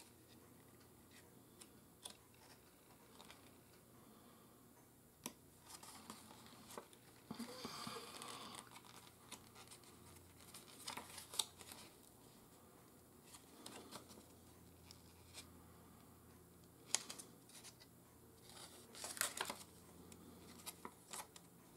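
Mostly near silence, with faint rustles and a few small clicks as a paper instruction booklet is handled and its pages turned; the longest rustle comes about eight seconds in.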